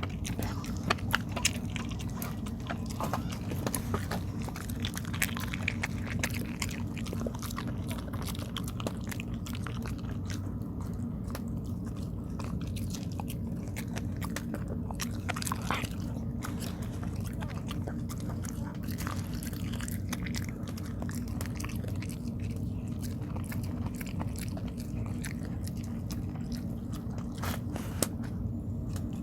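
A dog chewing and biting sticky rice cake (tteok): irregular wet clicks and smacks over a steady low hum.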